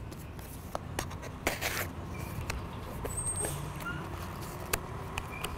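Cardboard and plastic packaging being handled while a box of bicycle parts is opened: scattered light clicks and taps with a few short rustles, the longest about one and a half seconds in. A low, steady rumble runs underneath.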